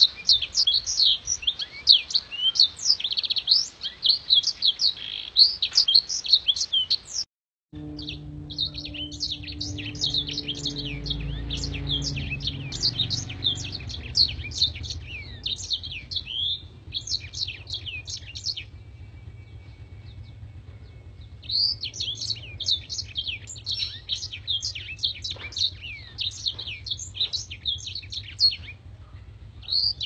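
Caged black-throated canary (blackthroat) singing a fast, continuous twittering song of rapid high chirps and trills. The sound drops out for a moment about seven seconds in, after which a low hum runs underneath, and the song pauses for about three seconds past the middle before resuming.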